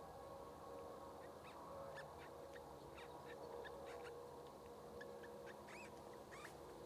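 Faint, scattered short bird calls, arched notes that come more often near the end, over a faint steady hum.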